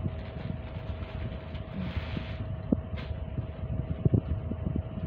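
Plastic packaging handled: a short crinkle about two seconds in and several light knocks as the parcel is moved about, over a steady low rumble and a faint steady hum.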